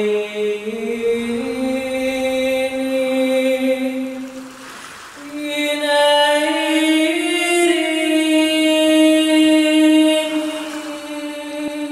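A woman's solo voice singing long held notes in two phrases without words: the first climbs in small steps, breaks off about four seconds in, and the second is held higher and longer.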